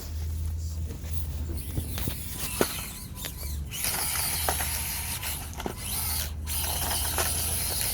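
Small electric motor and gears of a 1/24-scale Axial SCX24 RC crawler whirring, with small clicks and knocks of tyres and chassis against rock, as the crawler bounces and turns its wheels trying to climb an obstacle. The whirring grows louder about halfway through, over a steady low rumble.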